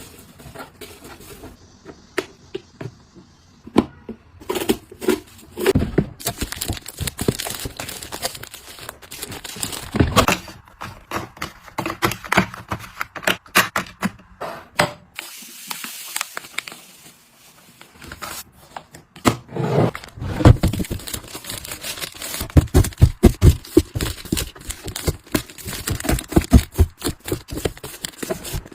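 Plastic packaging crinkling and rustling as items are unpacked and handled, with irregular taps and knocks. A quick run of sharp clicks comes about three quarters of the way through.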